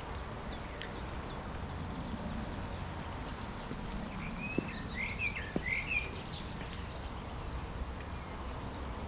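Quiet outdoor ambience: a low steady rumble, with short bird chirps clustering around the middle and a few faint clicks.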